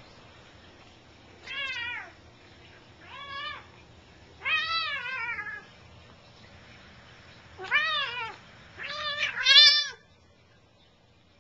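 Adult cat yowling in about six drawn-out, wavering cries over some eight seconds while play-wrestling with a Bengal kitten. The last two cries are the loudest.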